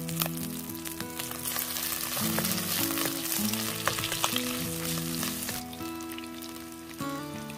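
Chicken skin and fat sizzling in a wok with ginger and garlic, stirred with a wooden spatula that clicks and scrapes against the pan. Soft background music with held notes plays underneath.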